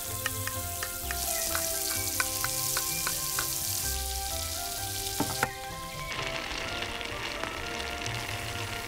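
Food sizzling as it fries in a miniature pan, with soft background music of held melodic notes and occasional small clicks.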